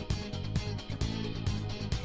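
Background music with a steady, fast beat and guitar.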